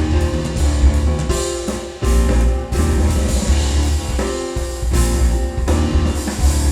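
Music with guitar, a heavy bass line and a drum kit, with no singing in this part.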